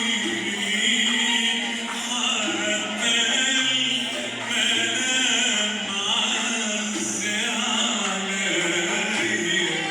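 Arabic classical song: a male voice singing with an accompanying instrumental ensemble, in long held, ornamented lines.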